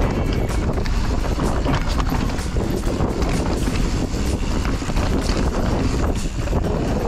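Wind buffeting a GoPro HERO9 Black's microphone during a fast mountain-bike descent, with the tyres and bike rattling and knocking over a rough dirt trail throughout.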